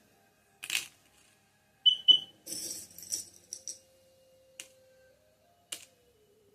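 Small metal charms clinking and jingling as they are handled and cast, with scattered sharp clicks and a brief bright double ring about two seconds in.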